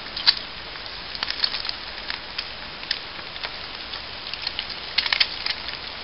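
Small twig fire crackling in a Swiss Army Volcano stove, with eggs frying in a pan on top. Irregular sharp pops and crackles sound over a steady hiss, with a loud pop just after the start and a cluster of pops about five seconds in.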